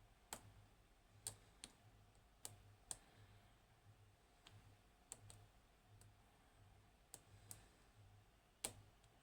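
Faint, irregular metallic clicks of a hook pick working the pins of a 5-pin ABUS lock cylinder under tension, about a dozen in all, the loudest near the end.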